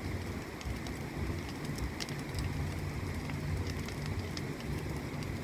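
Bonfire of burning wood and straw crackling: scattered sharp pops over a steady hiss, with a low rumble underneath.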